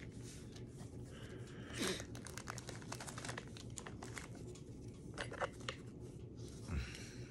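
Packaging being handled: quiet crinkling and rustling with scattered small clicks, louder about two seconds in and again near the end.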